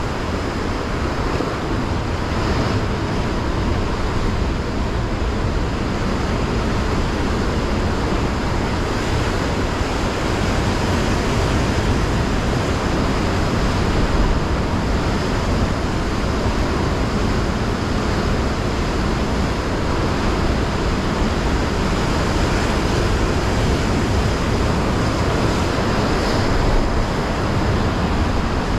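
Rough sea surf breaking and washing over rocks, a steady, loud churning noise.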